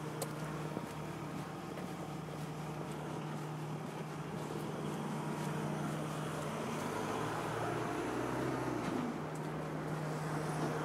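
Road traffic: a motor vehicle's engine hum runs steadily, and the noise of passing traffic swells in the second half.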